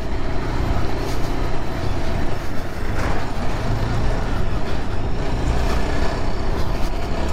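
Yezdi Adventure's 334 cc single-cylinder engine running under way as the motorcycle rides over a rough, potholed dirt track. It is a steady, dense rumble heard from the rider's seat, with no clear pitch changes.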